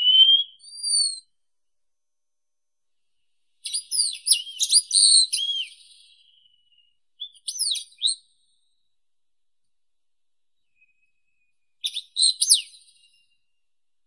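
Wallcreeper singing: a rising whistle and a short note at the start, then three bursts of quick, sweeping high whistled notes separated by pauses.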